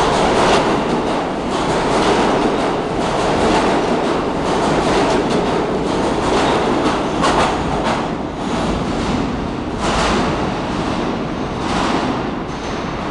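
R160 subway train pulling out of the station, its cars passing close with a loud continuous rumble and steel wheels clacking over rail joints. In the last few seconds, as the rear of the train moves into the tunnel, the wheels bang over the track switches in a few heavier separate knocks.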